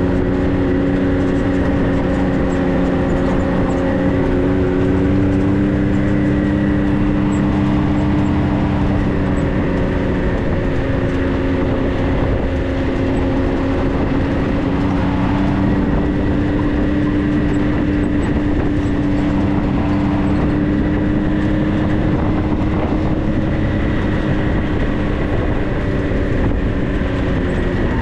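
A 4x4's engine running steadily at near-constant revs, a continuous drone over road or drivetrain rumble, its pitch shifting only slightly.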